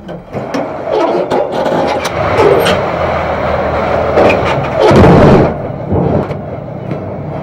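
Wheel loader's diesel engine running as its bucket pushes a large block of lava stone over the gravel quarry floor, with rock scraping and grinding and a few knocks. The grinding is loudest about five seconds in.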